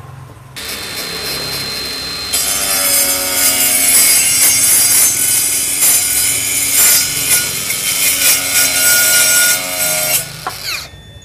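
Dekton M21-CS05BL 21 V brushless cordless circular saw with a multi-purpose carbide blade cutting through a thick steel pipe. The motor spins up about half a second in, and the blade bites into the steel about two seconds in with a loud, steady grinding that lasts about eight seconds. The motor winds down near the end.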